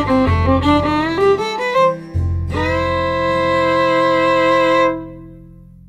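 Background music: a melody of changing notes that settles on a long held chord about two and a half seconds in, then fades out near the end.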